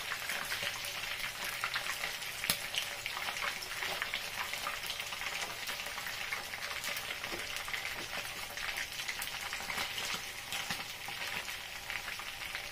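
Fish pieces frying in hot oil in a wok: a steady sizzle full of fine crackling pops, with one sharper click about two and a half seconds in.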